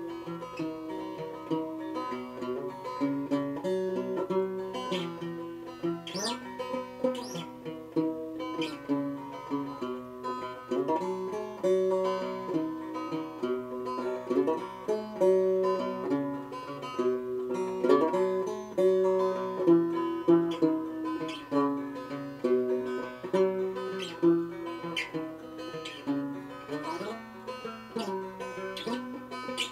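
Five-string banjo played solo: a continuous run of picked notes, with a few notes slid up or down the neck.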